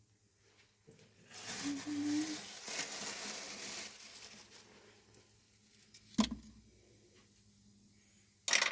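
A rustling noise lasting about three seconds, then a single knock, and a short sharp noise near the end.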